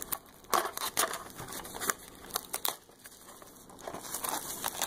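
Clear plastic shrink wrap being peeled off a cardboard miniature box, crinkling in irregular crackles that come thicker near the end.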